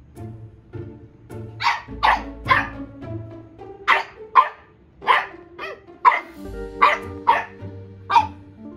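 French bulldog puppy giving about ten short, high-pitched play barks in quick spurts, starting about two seconds in, as it tries to get an older dog to play.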